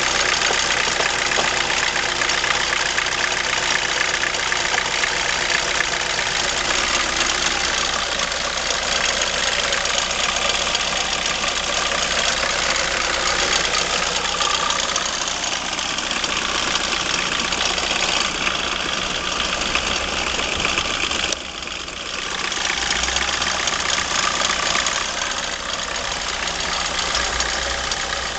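BMW E36 318tds four-cylinder turbodiesel idling with a steady diesel clatter, dipping briefly about two-thirds of the way through. The owner hears an annoying noise from the front of the engine now and then at idle and has not yet found its cause.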